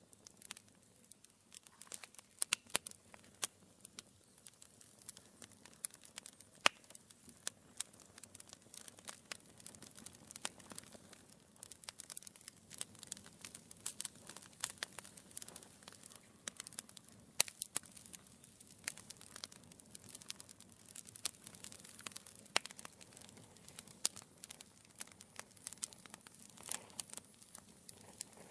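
Wood fire burning in a fireplace, crackling: a constant scatter of irregular small snaps and pops over a faint hiss, with a few louder pops standing out.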